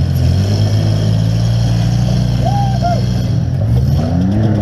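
Demolition-derby minivan's engine running steadily, heard from inside the stripped cabin. About four seconds in it revs up and drops back down.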